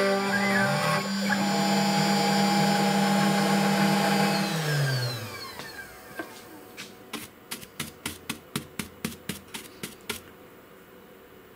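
A SainSMART Genmitsu PROVerXL 6050 Plus CNC router's spindle runs steadily at the end of a pocketing cut, then winds down with a falling whine about five seconds in as the job finishes. A run of light clicks follows, about three a second for around three seconds.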